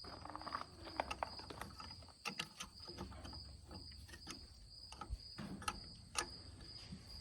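Scattered light metallic clicks and taps from handling a combine's chopper drive chain and sprocket as they are set in place. Behind them, insects chirp steadily in an even, high-pitched pulse.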